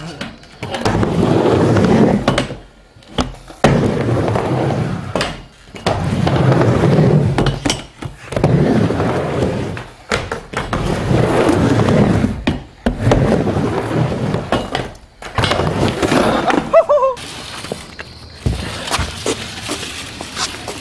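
Skateboard rolling back and forth across a wooden mini ramp. The wheel noise swells and fades with each pass, and the board gives a sharp clack against the ramp every few seconds.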